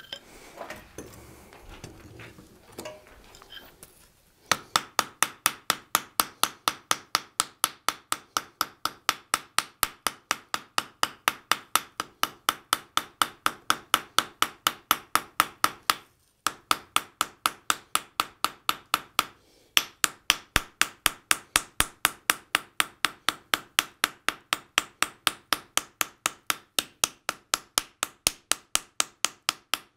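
Rapid light hammer blows on red-hot sheet steel lying on an anvil, about four ringing strikes a second, texturing the surface of a forged butterfly's wings. The hammering starts about four seconds in and breaks off briefly twice near the middle.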